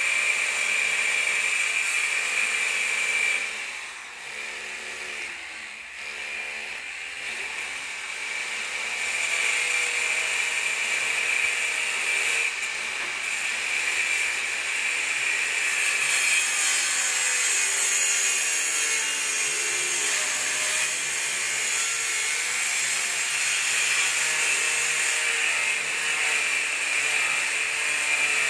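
A power tool running steadily, easing off for a few seconds about four seconds in and then running on again.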